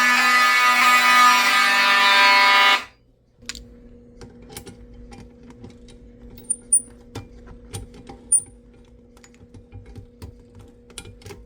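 Fire alarm horns sounding continuously in general alarm after a pull station activation, cutting off suddenly about three seconds in as the alarm is silenced. A faint steady hum follows, with scattered clicks.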